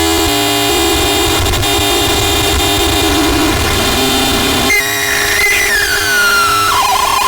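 Harsh noise from a custom Hellraiser noise box run through a distortion and glitch pedal chain (DOD, Data Corrupter, Digitech Death Metal): a dense, distorted wall of noise with a held drone. It shifts abruptly about halfway through, and a squealing tone then slides downward.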